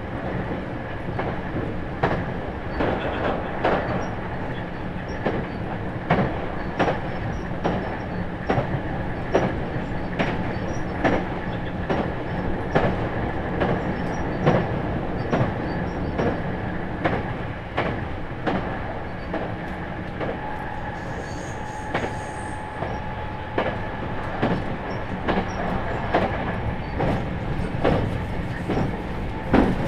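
Running sound inside a JR East 651 series limited express motor car (MoHa 650) at speed, with a steady rolling rumble and motor hum from its MT61 traction motors. The wheels click over rail joints in a regular clickety-clack, about once a second.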